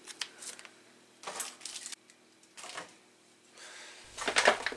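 Small handling noises of a plastic-wrapped food tray at a stainless-steel sink: a few short rustles and clicks with quiet gaps between them, then a louder run of rustling near the end.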